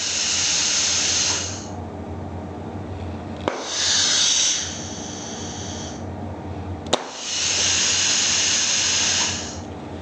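Compressed air hissing from the pneumatic valve exhausts as a 3/2 rotary switch valve is turned back and forth, shifting a pilot-operated five-way valve and cycling an air ram in and out. There are three hisses, each one to about two and a half seconds long. The second and third each begin with a sharp click as the switch is turned.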